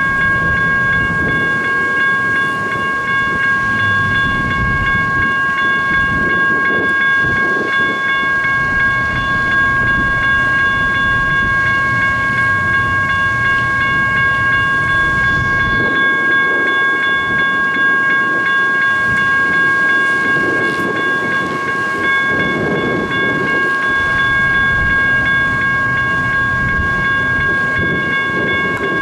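Railroad crossing bells ringing continuously, a steady cluster of high tones, over a low rumble that swells and fades. The crossing stays activated and keeps ringing while light rail trains stop and turn around short of it at a switch.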